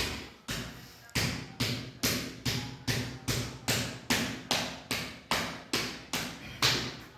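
Steady rhythmic slapping or patting by hand, about two and a half sharp strikes a second, each fading quickly, over a faint low hum.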